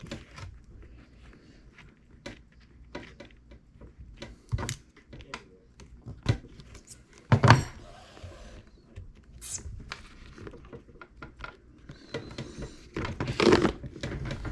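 Hands working on a leather-wrapped steering wheel while stitching: scattered light clicks and taps, a sharp knock about seven seconds in, and a longer rustling scrape near the end.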